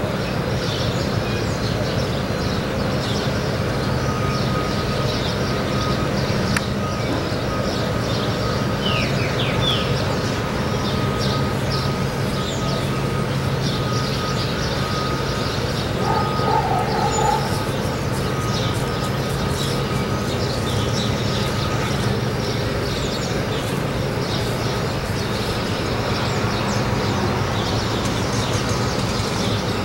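Steady low drone of a passing container ship's engines, an even hum with no change in level. Small birds chirp over it throughout, with a quick falling chirp about nine seconds in.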